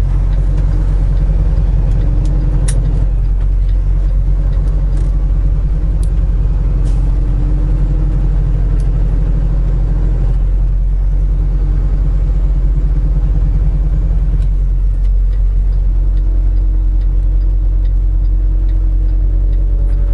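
Semi truck driving, heard from inside the cab: a steady low engine and road rumble, with a faint hum that comes and goes over it.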